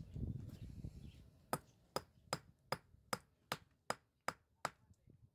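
Mason's hammer striking stone in a mortared stone foundation: nine sharp, evenly spaced blows, about two and a half a second, starting about a second and a half in after a low rumble.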